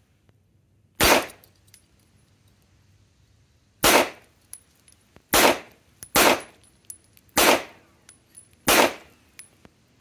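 Glock 17 9mm pistol fired six times as single shots at an uneven pace. Each is a sharp crack with a short echo trailing after it, the first about a second in and the rest coming closer together in the second half.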